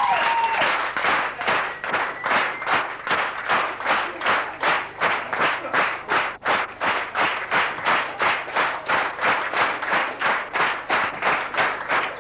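Audience clapping in unison, a steady rhythm of about three claps a second.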